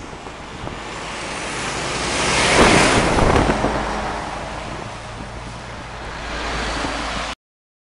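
DAF XF lorry with trailer passing close by, its engine and tyre noise rising to a peak about two and a half seconds in and then fading away, with wind on the microphone. The sound cuts off abruptly near the end.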